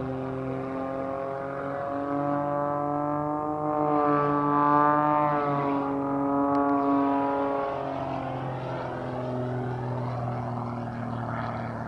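Pitts Special aerobatic biplane's piston engine and propeller running overhead. The tone steps up in pitch about two seconds in, is loudest around four to five seconds, and drops back down near eight seconds as the plane manoeuvres.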